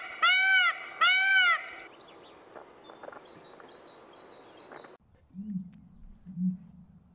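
Indian peafowl (peacock) giving two loud honking calls, each rising then falling in pitch, ending about two seconds in, followed by faint high chirping. From about five seconds in, an emu's low drumming pulses, about one a second.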